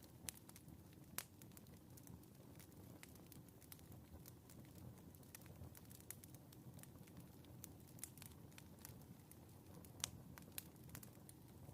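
Wood fire in a fireplace crackling quietly: irregular sharp pops and snaps over a low steady rumble, with a few louder pops near the start and about ten seconds in.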